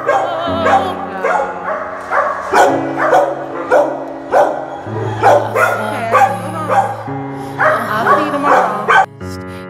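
A dog barking and yipping in quick succession, two or three barks a second, over background music with sustained low notes; the barking stops near the end.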